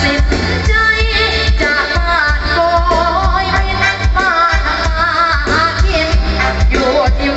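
A song with a singing voice and a heavy, pulsing bass beat played loud through an outdoor PA speaker rig of 15-inch bass cabinets and 12-inch mid cabinets.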